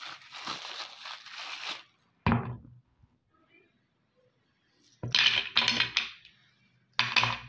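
Thin plastic soap wrapper crinkling as it is peeled off a bar of soap, then a single sharp knock of a hard object set down on a plate about two seconds in. Later come a few quick clacks of items laid on the plate, once around five seconds and again near the end.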